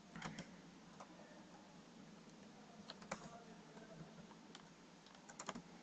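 Faint keystrokes on a computer keyboard: a few scattered taps and short runs of two or three, with pauses between them.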